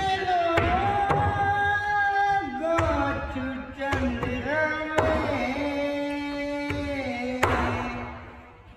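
A song playing: a voice sings long, held notes that slide between pitches over instrumental backing, with a few sharp percussive hits. It fades down near the end.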